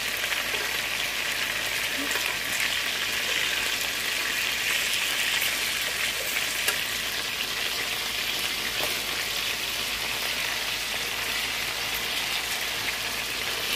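Seasoned boneless chicken thighs frying in hot oil in a nonstick pan on medium heat, a steady sizzle as the second side browns. A metal fork taps against the pan now and then, most sharply about seven seconds in.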